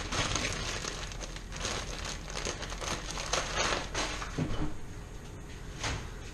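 Plastic bag of salad greens crinkling as it is handled and carried, then a couple of light knocks near the end as the fridge door is opened.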